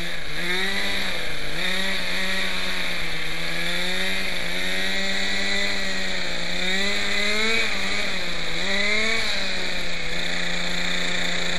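Quickie 18 RC helicopter's small glow-fuel engine running at idle, its pitch wavering, sagging and picking up again several times rather than holding steady.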